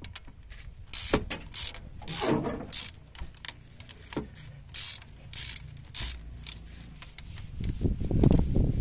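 Socket ratchet wrench clicking in short, irregular strokes while a tight 12 mm bolt is backed out, with some metal scraping and handling noise toward the end.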